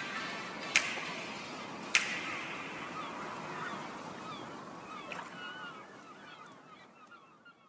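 Background track fading out: sharp beat hits about every 1.2 s in the first two seconds, then many short chirping bird calls in the second half as everything fades to nothing.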